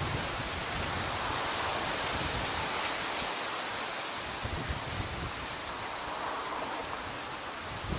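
Steady outdoor rushing noise, with low wind rumble on the microphone at times.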